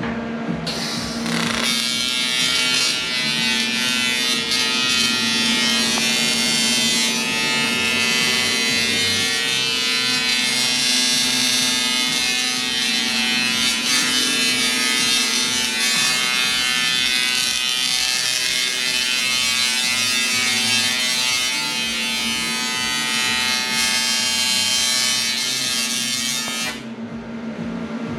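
A power tool's motor running steadily with a strong high hiss, starting about a second in and stopping near the end.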